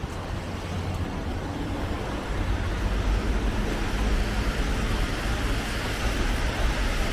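Road traffic on a rain-wet street: tyres hissing over the wet road with a low rumble that swells a couple of seconds in.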